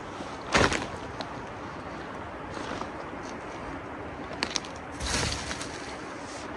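Hands digging through a pile of crumbly rotten wood to search for worms: short rustling scrapes about half a second in and again around five seconds, with a few small sharp snaps just before the second, over a steady background hiss.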